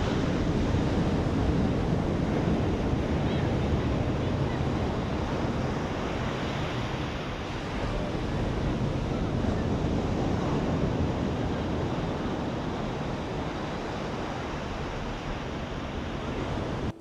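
Wind rumbling on the microphone over the wash of small waves on the shore, a steady fluctuating rush that cuts off suddenly at the end.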